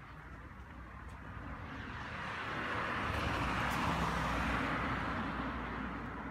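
A small hatchback car driving past, its engine rumble and tyre noise swelling to a peak about four seconds in, then fading as it moves away.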